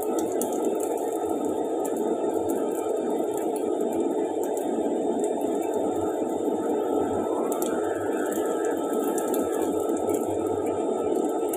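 Steady, even background noise, a constant rush with no rhythm or change, and a few faint light clicks.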